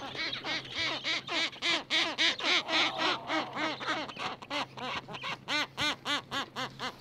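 Gentoo penguin braying: a long, rapid run of harsh honking calls, about four a second, the bird's typical display call in the breeding colony.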